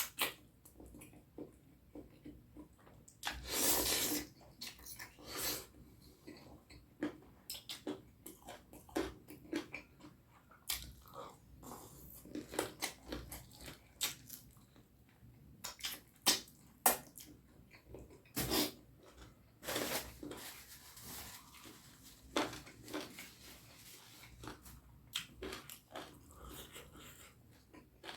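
Close-miked eating sounds of a person eating curry and rice: chewing and mouth clicks at an irregular pace, with a longer, louder noisy sound about four seconds in and another about twenty seconds in.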